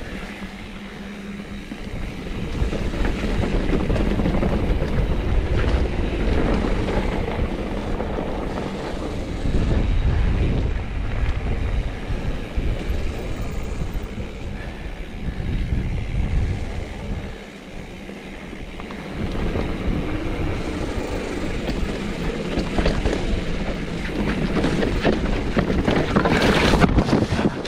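Mountain bike riding down a rough dirt trail: wind buffeting the microphone over the noise of the tyres on dirt and the bike rattling over bumps. It eases off for a couple of seconds past the middle and is loudest just before the end.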